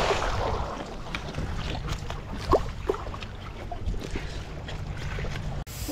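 Wind and water noise aboard a small wooden outrigger boat on choppy sea, with a steady low rumble and a few light knocks, the clearest about halfway through.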